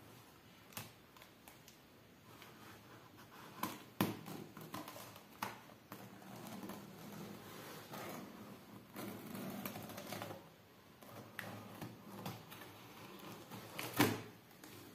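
A precision craft knife cutting through packing tape and scraping along corrugated cardboard, with scattered irregular clicks and taps. A louder knock comes about a second before the end, as a box flap is pulled open.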